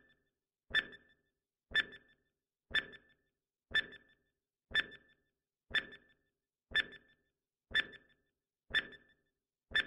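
Countdown-timer sound effect: a short, sharp tick with a brief ring, repeating evenly once a second, about ten times.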